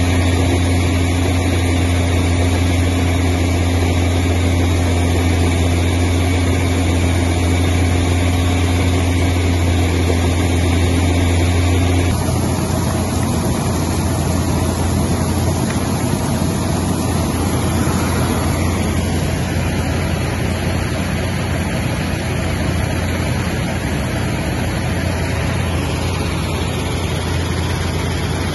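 Roco X7T tracked triple-deck screener running under load, a steady low machine hum. About twelve seconds in the sound changes abruptly to a rougher, noisier rush of crushed stone pouring through the screen decks and off the conveyor.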